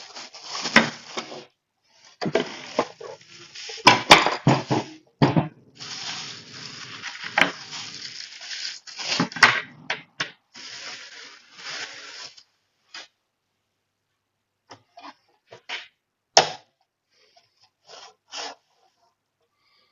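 Rustling and clattering as a newly unboxed belt sander's packaging and loose parts are handled: bursts of rustling with sharp knocks for about the first twelve seconds, then a few scattered clicks and taps.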